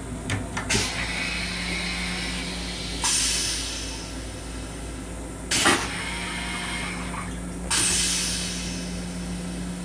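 An M7 railcar toilet's pneumatic flush cycle: two sharp air hisses about five seconds apart, each fading over a second or so, with a loud clunk between them. Under it runs the steady hum of the rail car.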